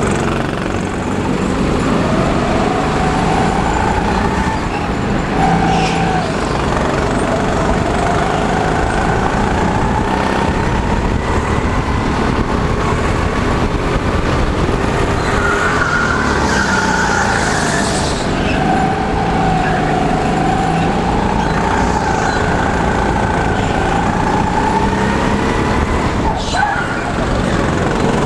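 Rental go-kart heard from the driver's seat while lapping: its motor rising and falling in pitch as it speeds up and slows through the corners, over a constant low rumble of wind and tyre noise.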